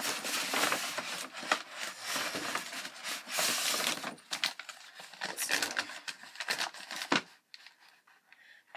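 Rustling and crinkling of bags and packaging as bath products are dug out and handled, with scattered clicks and knocks. A sharp knock comes about seven seconds in, and the rustling stops there.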